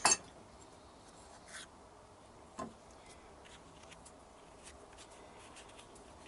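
A sharp click at the very start, then faint scraping, rubbing and light ticks of a rubber carburettor-to-engine boot being trimmed by hand.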